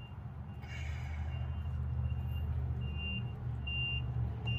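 A short high-pitched beep repeating about every 0.8 seconds, louder in the second half, over a steady low hum, with a brief hiss-like scrape about a second in.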